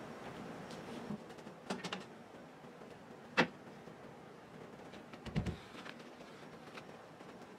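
Quiet handling sounds of headliner fabric being stretched and pressed onto a car's roof frame: a few light clicks, one sharp click about three and a half seconds in, and a duller knock a couple of seconds later.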